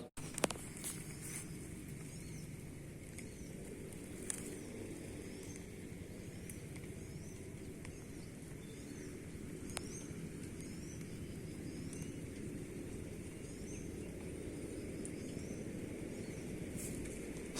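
Outdoor ambience with a steady low rumble. A bird calls over it again and again, a short rising chirp about once a second, and there are a few sharp clicks, the loudest just after the start.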